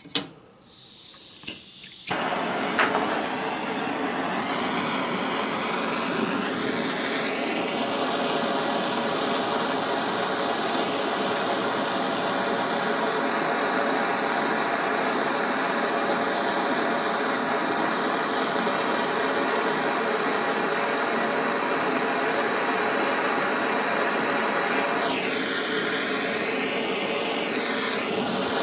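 Steady blowing hiss with a faint whine from the heat tool used to soft-solder a pin into a brass lock. It builds up over the first couple of seconds, changes pitch a little near the end, and then cuts off.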